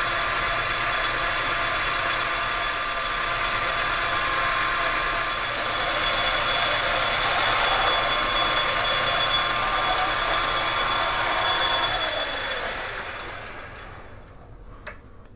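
Metal lathe running under power feed as it turns down a metal shaft, a steady machine hum with several whining tones from its motor and gearing. About twelve seconds in it is switched off with a click and winds down to a stop.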